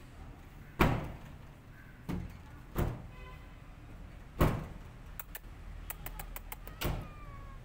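Five loud, sharp knocks at uneven intervals, the loudest about a second in and about four and a half seconds in, with a quick run of faint clicks in the second half.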